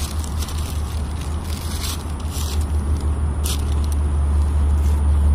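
Footsteps crunching and crackling on dry leaf litter and twigs at an uneven walking pace, over a steady low rumble.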